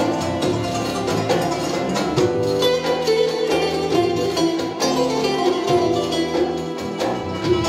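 Live Turkish instrumental ensemble music: fast plucked strings from bouzouki, oud and kanun lead the melody, with violin, electric bass and hand percussion underneath.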